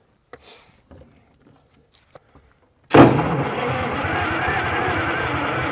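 Electric starter cranking a GM Detroit Diesel two-stroke engine. It kicks in suddenly about three seconds in, with a high starter whine over the engine turning. The engine is turning over on starting fluid but does not catch.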